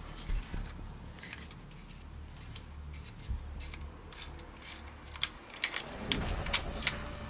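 Small clicks and light rattles of an airsoft M4's barrel and delta ring parts being handled and worked by hand. The clicks are sparse at first and come thicker toward the end.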